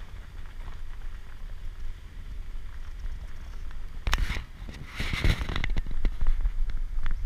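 Acura SUV driving over a gravel road: a steady low rumble with tyres crackling over loose stones, and louder stretches of crunching gravel about four seconds in and again about five seconds in.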